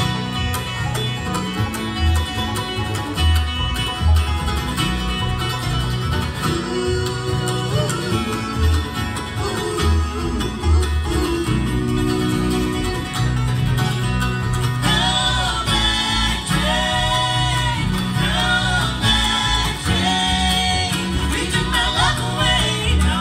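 Live bluegrass band playing an up-tempo song on banjo, acoustic guitar, mandolin, fiddle and upright bass. Singing voices come in about two-thirds of the way through.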